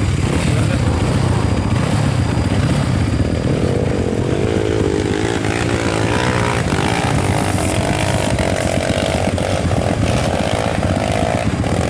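Off-road trail motorcycle engines running and revving as bikes climb a steep dirt hill. About four seconds in, one engine's note wavers up and down, then holds a steady, higher pitch until near the end.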